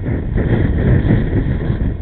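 Gusty wind buffeting the microphone with a heavy, uneven rumble. Under it runs the faint steady whine of an electric RC flying wing's motor and propeller in flight.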